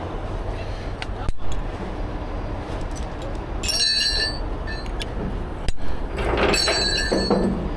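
Steel rigging chains and grab hooks clinking with a bright metallic ring, twice, about four and seven seconds in, over a steady low rumble, with a couple of sharp knocks.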